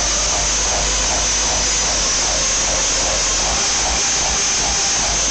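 Festival main-stage sound system heard through an overloaded phone microphone: a loud, distorted hiss with a faint repeating pulse and a steady low rumble beneath.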